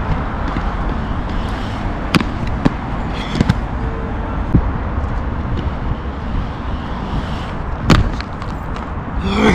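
Aggressive inline skates knocking on the concrete and metal coping of a skatepark ramp: several sharp knocks, the loudest about eight seconds in, over a steady low rumble.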